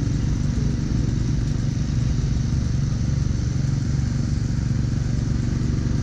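Gas-powered snowblower engine running steadily under load.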